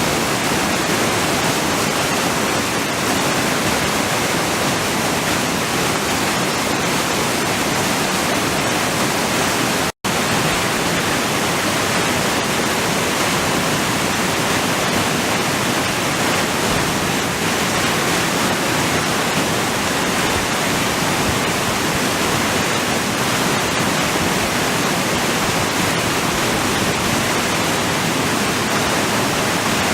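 Naena Falls, a wide waterfall with a huge volume of water, roaring down in a steady, dense rush of falling water. A split-second dropout breaks it about ten seconds in.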